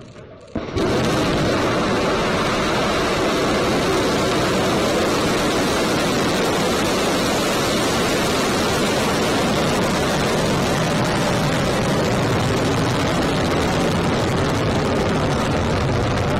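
Long March 3B/E rocket's engines at launch: a loud, steady, even roar that starts abruptly about a second in and holds without change.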